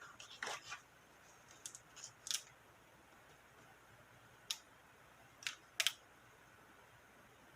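A handful of short, sharp snips and clicks from paper-crafting work at a desk: tools and paper being handled, spaced a second or more apart, with two close together near the middle.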